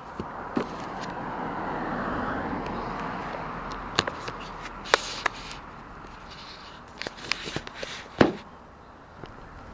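A vehicle passing, its noise swelling and fading over about three seconds, followed by scattered sharp clicks and knocks, the loudest a little past eight seconds in.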